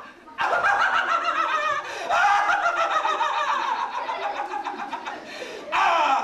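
Long, high-pitched laughter from a puppet character's voice, a rapid run of 'ha' pulses that goes on for several seconds, with a last loud burst near the end.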